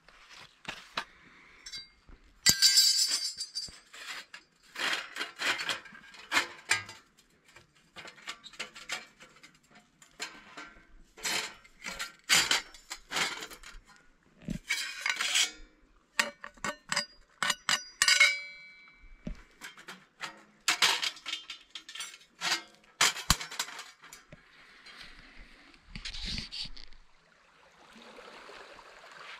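Metal panels of a Firebox Onenighter folding stove clinking and knocking together as the ash-filled stove is handled and taken apart, some strikes leaving a short metallic ring. Near the end, a soft wash of water on a rocky shore.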